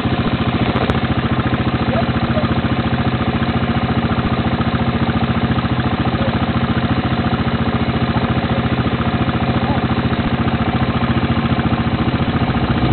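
A vehicle engine idling steadily and close by, its even firing pulses unchanged throughout, with a slight drop in pitch just before the end.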